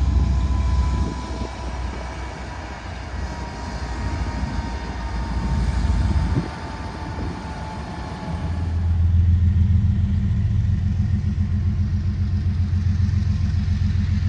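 Passing diesel-hauled freight train: a deep rumble of locomotive and hopper cars rolling on the rails. About eight and a half seconds in, the sound changes abruptly to a steady low rumble with a fast pulse.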